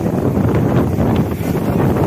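Strong storm wind blowing hard across the microphone, a dense, steady low buffeting.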